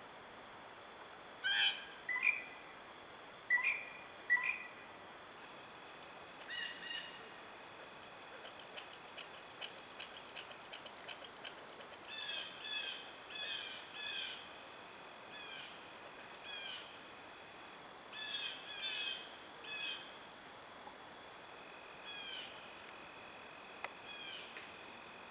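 Wild birds calling: a few loud calls in the first few seconds, then a long series of shorter repeated calls, some dropping in pitch, with more spread out near the end.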